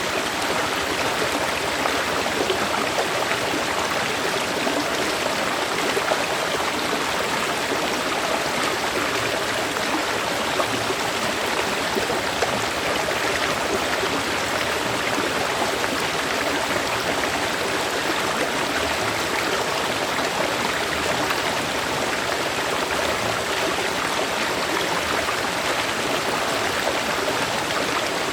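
Stream water flowing and splashing over rocks, a steady, even rush of running water.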